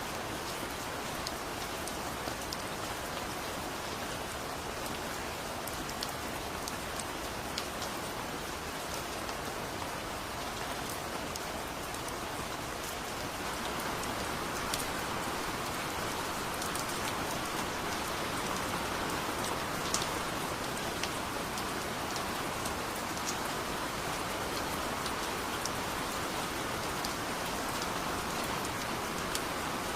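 Heavy rain falling steadily, an even hiss with scattered sharp drop hits, growing a little louder a little before halfway.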